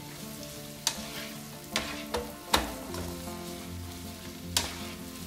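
Tuna with garlic, chillies and lemongrass sizzling in oil in a frying pan as it is stir-fried, with a spatula knocking and scraping against the pan about five times.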